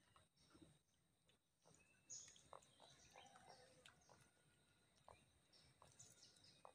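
Near silence: quiet outdoor ambience with faint, scattered short high chirps, one a little clearer about two seconds in.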